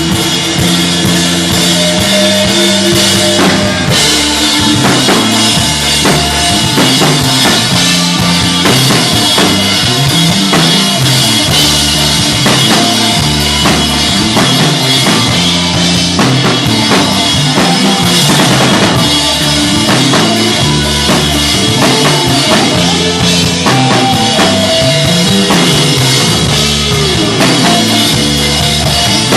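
Stoner rock band playing live: a drum kit with kick and snare driving a heavy riff of sustained low notes that shift every second or so.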